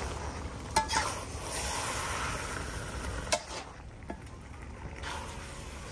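A utensil moving chicken around in a large metal pot of simmering green curry, with a soft hiss and two sharp clinks against the pot, just under a second in and a little past three seconds.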